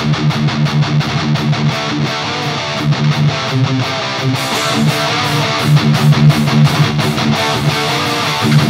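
Distorted electric guitar through Lundgren Black Heaven humbucking pickups, playing a fast picked riff on the low strings with rapid, evenly spaced note attacks.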